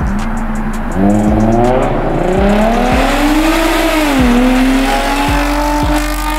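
Lexus IS350's 3.5-litre V6 accelerating hard past in a fly-by. The engine's pitch climbs, dips once about four seconds in at an upshift, then rises again as the car goes by.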